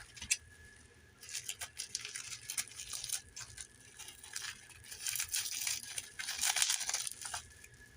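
Tape being picked at, peeled and torn off small 3D-printed plastic parts: irregular scratchy tearing and crinkling with small plastic clicks and rattles.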